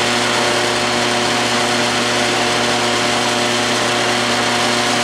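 A 12-inch Atlas/Craftsman metal lathe running steadily, its motor and drive giving an even hum with a broad whir over it.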